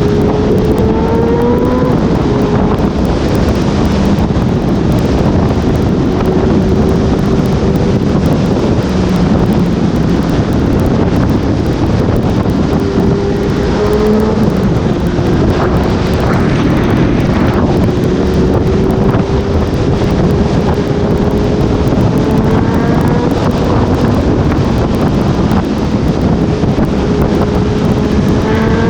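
Heavy wind noise on the microphone at riding speed, with a Honda CB1000R's inline-four engine running underneath, its pitch rising and falling several times.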